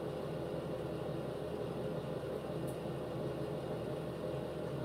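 Steady low hum of a running fan, unchanging throughout.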